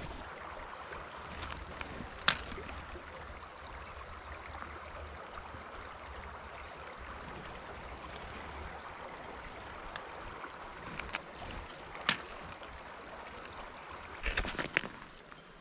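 Creek water trickling steadily over stones, with two sharp clicks and a short burst of knocking near the end.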